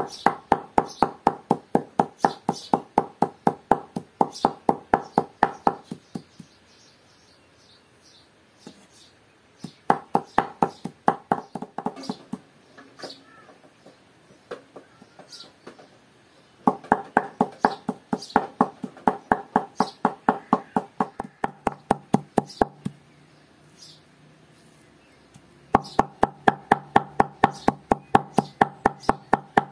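Cleaver finely mincing fresh herbs on a wooden cutting board: rapid knocks, about five a second, in four runs broken by short pauses.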